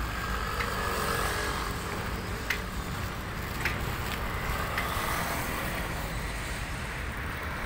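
Street traffic: a steady low rumble of vehicles, with a few short clicks about two and a half, three and a half and five seconds in.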